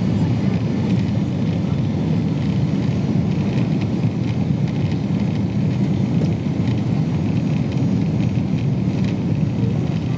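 Steady low roar inside the passenger cabin of a Boeing 777-200 airliner: engine and airflow noise, with no change or distinct events.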